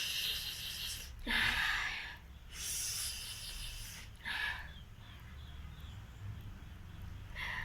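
A person blowing her nose hard several times: breathy bursts of air, three of about a second each and then two shorter ones, the last near the end.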